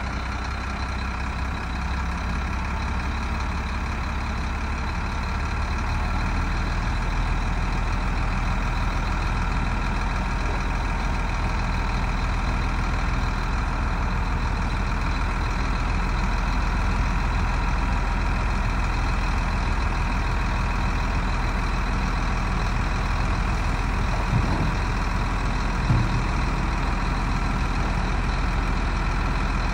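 Heavy diesel engine of earthmoving machinery running steadily, growing slightly louder about six seconds in, with two brief knocks near the end.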